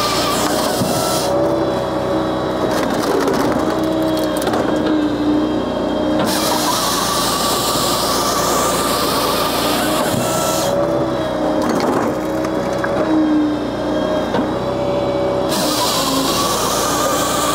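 Japa 395 firewood processor running off a tractor's PTO. The engine and hydraulics drone steadily, and their pitch sags and recovers under load. The saw bar cuts through logs in stretches of a few seconds: at the start, from about six to eleven seconds in, and again near the end.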